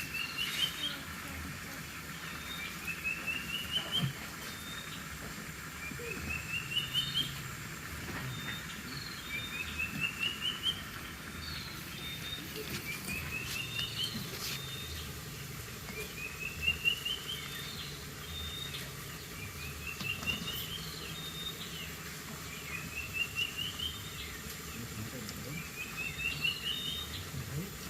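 A bird singing the same phrase over and over, about every three seconds: a quick run of notes rising in pitch over about a second, then a short higher note.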